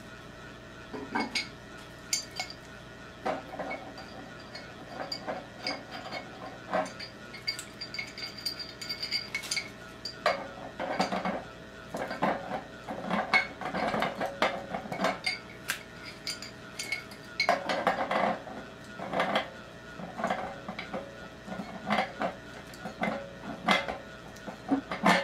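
Metal wrench and brass plumbing fittings clinking and clanking in short, irregular bursts as the wrench is set on and turned against a brass ball valve fitting.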